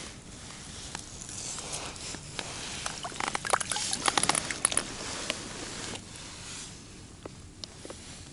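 Close handling noises as a crucian carp is taken out of a landing net and held in the hand for unhooking: rustling of net and clothing, with a quick flurry of sharp clicks and taps about three to five seconds in.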